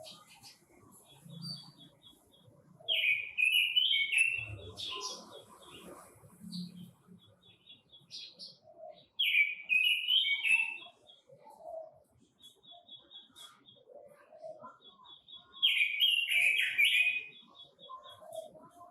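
Red-billed leiothrix (Quế Lâm bird) singing: three loud warbled song phrases about six seconds apart, with quick runs of short high chip notes between them.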